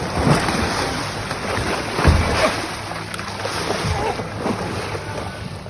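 Wind buffeting the microphone over water around a boat at sea, with a dull thump about two seconds in.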